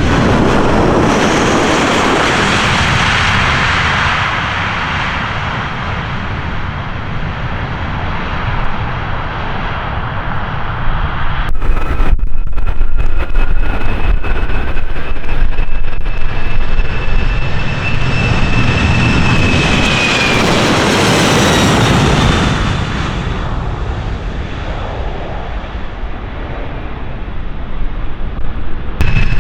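Jet airliner engines at high thrust close by: a loud rushing noise with a high whine over it. The whine glides down about 20 seconds in, and the sound breaks off briefly and picks up again about 12 seconds in.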